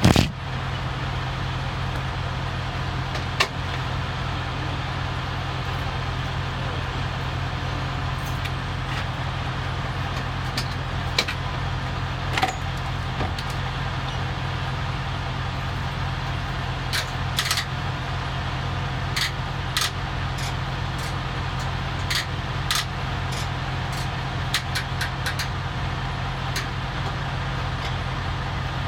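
Steady low hum of a running engine, with scattered light clicks from the ignition key and starter solenoid as the truck is tried. The starter does not crank; the driver suspects the relay or the starter itself.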